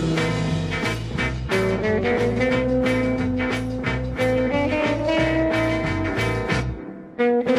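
Recorded rock band music: electric guitars over a bass line and a steady drum beat. Near the end the track drops away and a new one starts abruptly.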